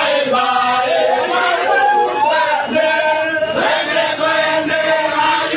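A crowd of men chanting loudly together in unison, with shouting voices mixed in.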